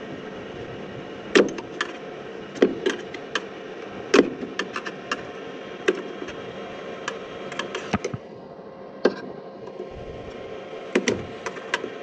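Sharp clicks and light knocks of metal furnace parts and fasteners being handled and taken off, coming irregularly in small clusters, over a steady background hum that drops about eight seconds in.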